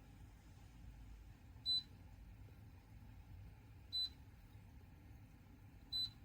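Three short high-pitched electronic beeps, about two seconds apart, over a faint low hum.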